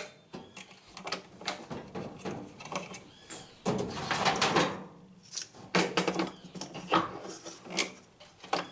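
Clicks, knocks and clattering of plastic and metal parts being handled and pushed into place: the spring-loaded coupling piece of an Electrolux LTE06 washing machine's drive mechanism being fitted back together. The busiest stretch of clatter comes about four seconds in.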